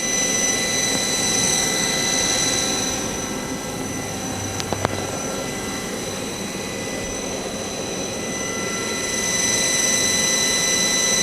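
Main spindle of a Star SV32J CNC Swiss lathe spinning steadily at 3,000 RPM: a steady high whine of several pitches over a mechanical hum. Two short clicks about five seconds in.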